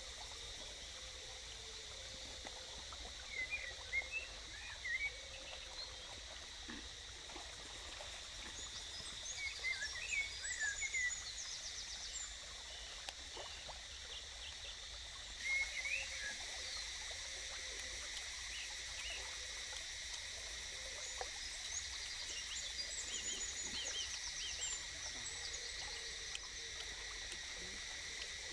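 Forest ambience: insects droning steadily on several high tones, with birds giving short chirping calls now and then, most clearly about ten and sixteen seconds in.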